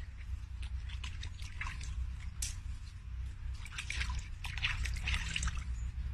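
Small dog nosing about in shallow water after a floating leaf, making irregular small splashes and drips that come in clusters, busiest in the second half, over a steady low rumble.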